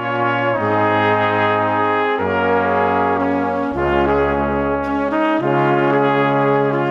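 Outro music led by brass instruments, playing sustained chords that change every second or two.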